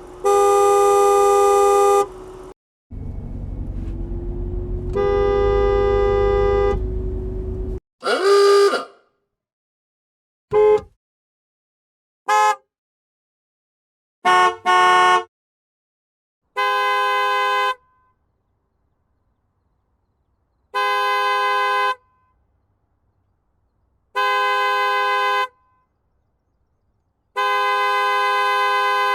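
A series of separate car horn honks: a long honk, another over low engine rumble, one that bends in pitch, a few short toots including a quick double toot, then four steady honks of about a second and a half each, evenly spaced.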